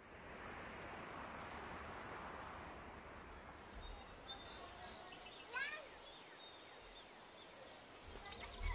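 Faint outdoor ambience: a soft, even hiss, with a few short bird chirps from about halfway through.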